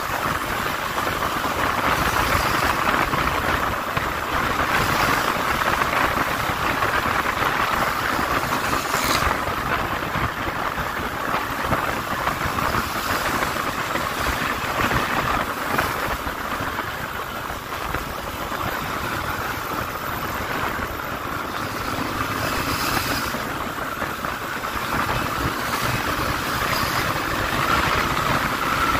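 Yamaha Lander 250 motorcycle riding at speed in traffic: its single-cylinder engine running under a steady rush of wind noise on the onboard microphone.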